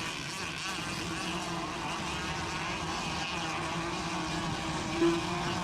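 Racing RC boats' small engines buzzing and whining together as they run the course, a steady drone with wavering high pitches and a brief swell about five seconds in.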